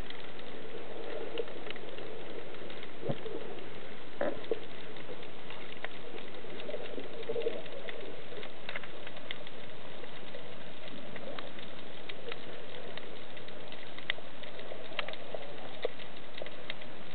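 Underwater ambience recorded beneath the sea: a steady watery hiss with many scattered sharp clicks and crackles.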